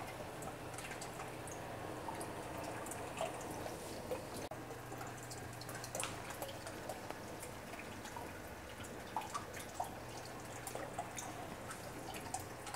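Condensed distillate dripping from a still's outlet into a glass oil/hydrosol separator, with hydrosol trickling out of its U-tube into a stainless steel pitcher: faint, irregular drips over a steady low hum.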